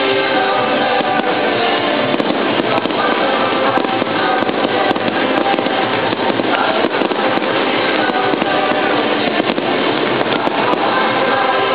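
Aerial fireworks shells bursting again and again, sharp bangs over a continuous crackle, with music playing at the same time.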